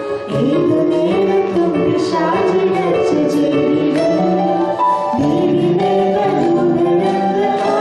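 A woman and a man singing a Malayalam song into handheld microphones, heard amplified over an instrumental accompaniment.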